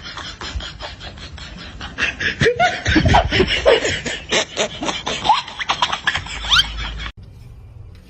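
People laughing in quick bursts, cut off abruptly about seven seconds in.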